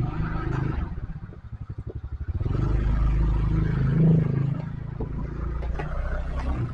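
Motorcycle engine running at low revs with an even chugging beat, then opening up to a louder, steadier rumble about two and a half seconds in as the bike pulls away.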